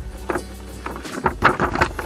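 Background music, with the crinkle and rustle of a large glossy printed instruction sheet being handled and moved aside.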